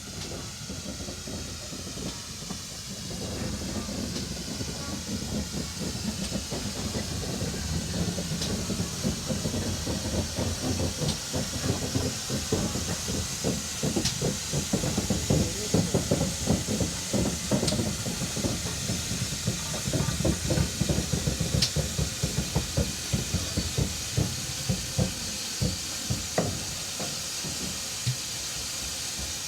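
Steam locomotive hissing steadily, with a rhythmic beating from the train that starts a few seconds in, grows loudest in the middle, then eases off near the end.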